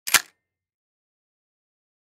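Pump-action shotgun racked open: the forend slid back in two quick clicks, all over within a fraction of a second.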